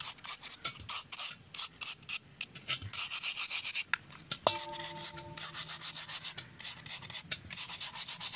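A stiff plastic brush scrubbing the wet wire mesh of an LML Vespa scooter's air filter in a metal pan of cleaning fluid, in runs of quick back-and-forth strokes with short pauses. About halfway through, a light metallic knock rings briefly.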